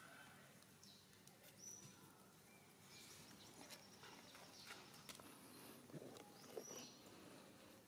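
Near silence: faint outdoor ambience with light rustling and clicking in dry leaf litter, and two brief high chirps, one about two seconds in and one late on.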